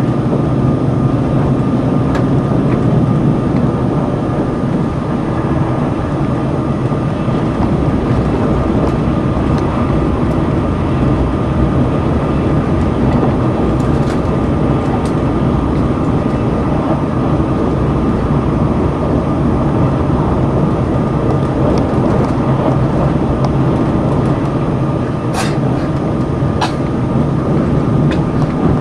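Limited Express Sonic tilting electric train heard from inside the passenger cabin, running at speed with a steady rumble and hum. Two sharp clicks come near the end.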